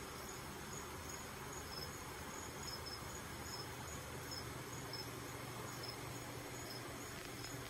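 Insect chirping: short, high chirps repeated every half second to a second, over a steady low hum.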